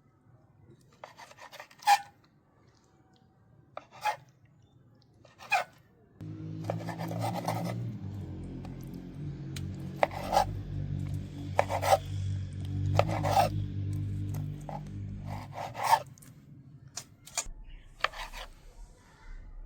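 Rasping, scraping strokes of hand food preparation, a few spaced apart at first and then about one a second. A steady low hum runs under the strokes from about six seconds in until about sixteen seconds.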